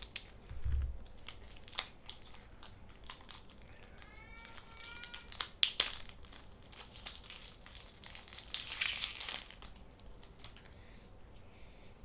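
Foil Pokémon booster pack wrapper crinkling and being torn open, with scattered crackles and rustles and a denser burst of crinkling about nine seconds in.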